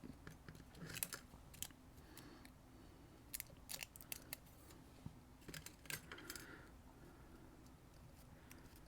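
Faint, scattered clicks and light scrapes of small metal parts as a dimple lock cylinder is handled and taken apart.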